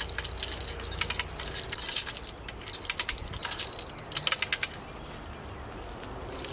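Hand-operated come-along ratcheting under load: about six short bursts of sharp metallic clicks, one for each stroke of the handle, as the chain draws tight on the log.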